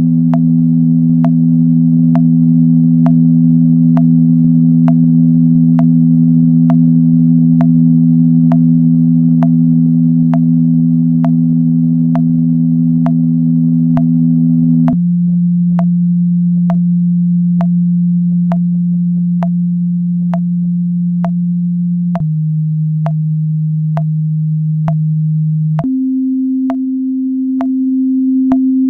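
Electronic drone tones for flute intonation practice: steady, pure low tones held under a click about once a second. Two notes sound together at first. About halfway through they change to a single lower note, which drops again a few seconds later and then jumps up to a higher held note near the end.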